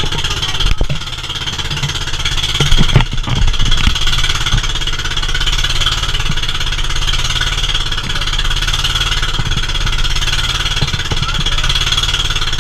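Motorized outrigger boat's engine running steadily while the boat is under way, with a few low thumps about two to three seconds in.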